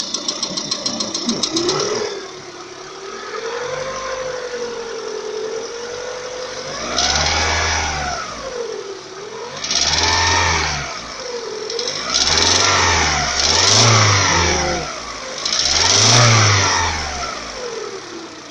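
Lada Kalina engine running warm with a fast metallic knock at idle for the first couple of seconds, then revved up and let fall back five times. The knock is in the fourth cylinder near the connecting rod's small end, appears once the engine reaches 90 °C and stops at medium revs; the owner suspects a small-end bushing bored too tight after a rebuild.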